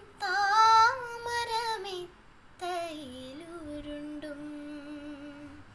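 A girl's voice singing a Malayalam song unaccompanied: a phrase with quick runs of ornamented notes, then a long held note from about three seconds in.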